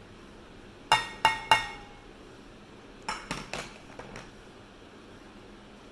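Glass mixing bowl clinking as a bowl of ground pistachio is knocked against its rim to empty it. There are three sharp ringing clinks about a second in, then a quicker run of softer ones a couple of seconds later.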